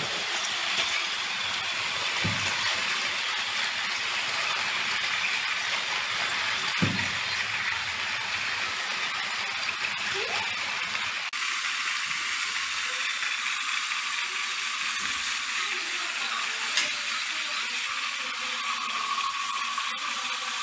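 Battery-powered Thomas & Friends toy engines running on plastic track: a steady high whir from their small motors and wheels, with a few light clicks and knocks.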